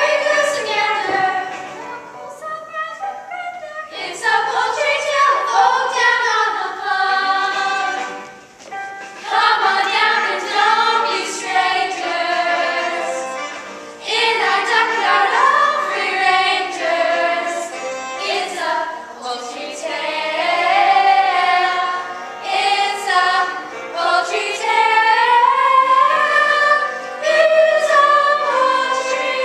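A group of voices singing in chorus: a musical-theatre ensemble number.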